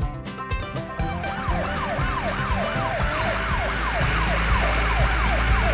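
Police siren sound effect in a fast yelp, each cycle sweeping down in pitch at about three a second, starting about a second in over background music.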